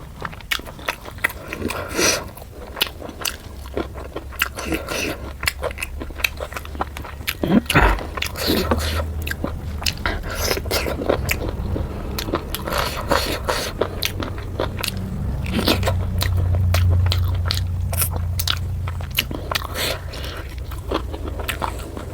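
Close-miked eating sounds of a person biting and chewing puri with chicken curry: a dense run of wet smacks and clicks, with one heavier knock about eight seconds in.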